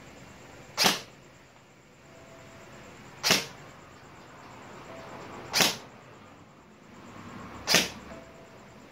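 Poseidon Punisher 6 airsoft electric rifle firing four single shots of 0.20 g BBs, each a sharp crack, about two to two and a half seconds apart. The shots are a muzzle-velocity test over a chronograph, averaging about 407 fps.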